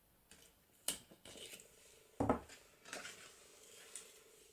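Papercraft handling sounds: a few light taps and clicks of card, patterned paper and a tool against the desk, the loudest a soft knock about two seconds in, with faint rustling as double-sided tape liner is peeled away.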